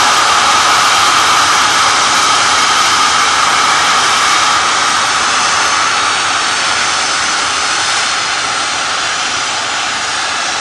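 Natural gas venting from two blowdown stacks during an emergency shutdown (ESD) of a reciprocating compressor station: a loud, steady rushing hiss that slowly grows quieter as the pipeline depressurises.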